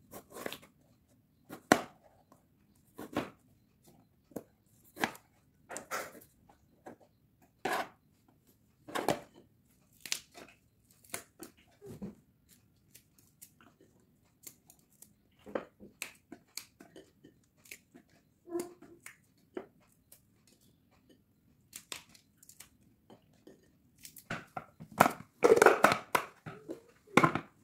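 Kitchen knife cutting through a tomato and red chillies on a cutting board: single sharp chops at irregular intervals, about one a second. Near the end, a quick run of louder knocks and rustles as the cut pieces are dropped into the plastic bowl of a food chopper.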